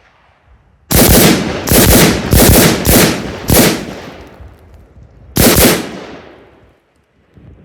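Carbine fired in quick pairs on a doubles drill: a rapid string of sharp rifle shots, each with a short echoing tail, then one more shot a couple of seconds later.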